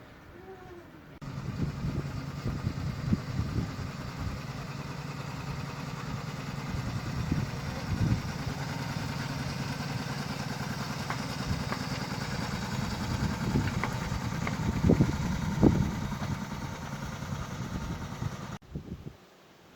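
Petrol engine of a 7¼-inch gauge petrol-hydraulic miniature locomotive running steadily, with a few sharp knocks. The sound starts abruptly about a second in and cuts off near the end.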